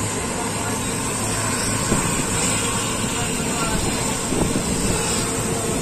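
Steady running noise of a moving vehicle: an even rumble and rush that holds level throughout.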